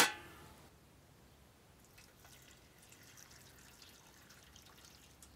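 A single sharp clink right at the start that rings briefly, then faint drips and small scattered ticks of liquid.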